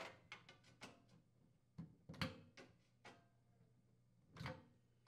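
Faint, scattered clicks and small rattles as wire terminals are pulled off a microwave turntable motor's spade connectors, the strongest about two seconds in and again near the end.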